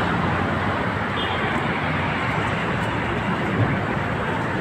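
Steady traffic noise from passing cars.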